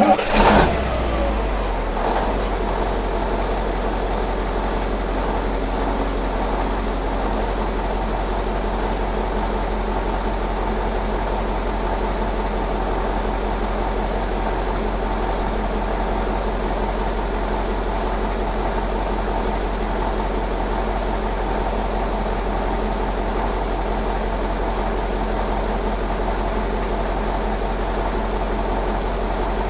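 Diesel car engine starting with a brief loud burst in the first half second, then idling steadily with a strong low hum.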